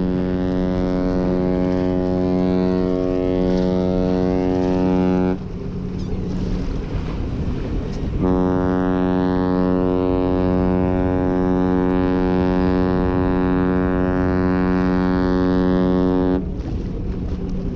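Celebrity Apex cruise ship's horn giving two long, deep blasts as the ship departs port. The first blast is already sounding and stops about five seconds in. The second starts about three seconds later and lasts about eight seconds.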